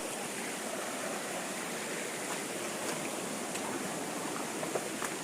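Flowing water rushing steadily, with a few faint ticks.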